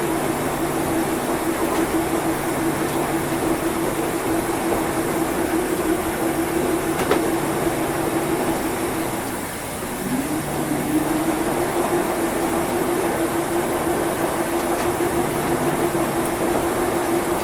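Washing machine running, with a steady motor hum over a churning noise. About ten seconds in, the hum drops out for a moment and comes back with a short rising whine. There is a single faint click about seven seconds in.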